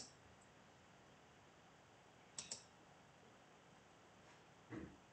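Faint clicking at a computer, a close pair of clicks about two and a half seconds in, over near-silent room tone, with a soft low thump near the end.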